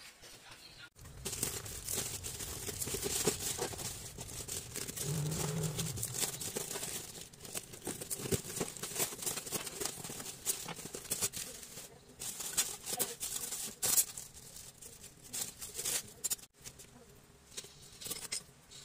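Plastic wrapping and a cardboard box being handled and opened: rustling and crinkling with scattered knocks and clicks. After about sixteen seconds it drops to quieter, occasional light clicks.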